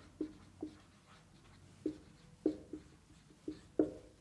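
Felt-tip marker writing on a whiteboard: about seven short, unevenly spaced strokes as letters are drawn.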